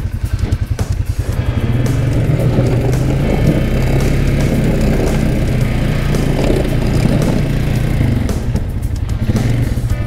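Polaris Sportsman 450 H.O. ATV's single-cylinder engine running steadily under load while pushing snow with a front plow blade, easing off about eight seconds in.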